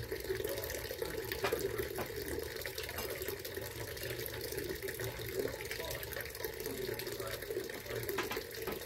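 Small garden fountain, water splashing and trickling steadily, with a few light clicks.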